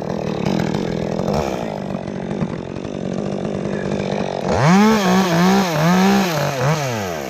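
Chainsaw cutting into a cypress limb at full throttle; about two-thirds of the way through, the engine pitch rises and dips several times as the cut loads it, then falls away as the throttle is released near the end.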